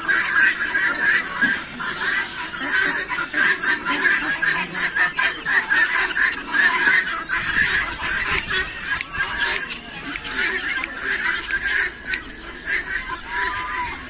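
A large mixed flock of aviary fowl, many of them guinea fowl, calling all at once: a dense, unbroken chorus of short overlapping calls.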